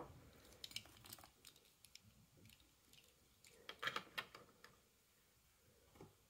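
Faint clicks and taps of a small Hot Wheels toy car being handled and set down on a wooden desk, with a cluster of taps about four seconds in.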